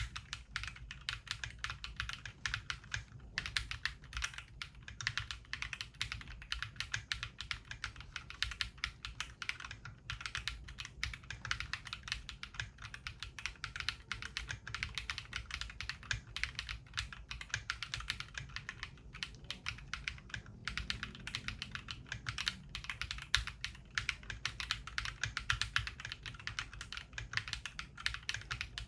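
Fast, continuous typing on a Mongeek M5 mechanical keyboard, with a few brief pauses. Its Akko Piano switches are fully lubed with Krytox 205 and fitted with switch films, and it has lubed Cherry screw-in stabilizers and Poron foam dampening in the case.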